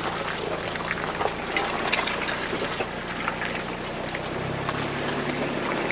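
Ford Bronco's engine running steadily while the truck crawls along an off-road trail, with scattered clicks and knocks throughout; the engine note rises slightly about four seconds in.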